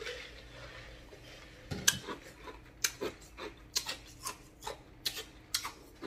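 A man smacking his lips after taking a drink: a string of short, sharp smacks, about two or three a second, starting about two seconds in.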